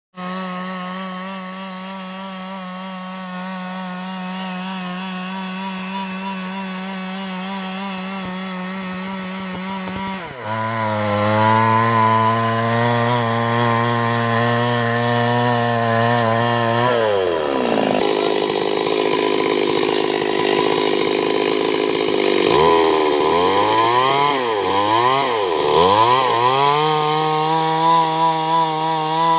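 Chainsaw engine held at high revs with a steady pitch. About ten seconds in it cuts into wood: the pitch drops and it gets louder as the engine takes the load. Around seventeen seconds it bogs down further, and the pitch then swings up and down several times before it clears back to a steady high rev near the end.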